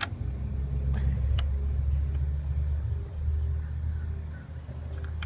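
A steady low rumble, with a few light metallic clicks as a small bracket and its bolts are handled and lined up on a motorcycle's gas tank; one sharp click right at the start and another about a second and a half in.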